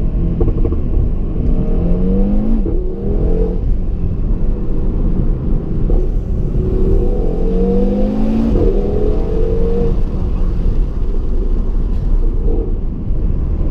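2017 Audi TT RS's turbocharged 2.5-litre five-cylinder engine accelerating hard. The revs climb twice, each time cut by a quick upshift and climbing again, over a steady low rumble.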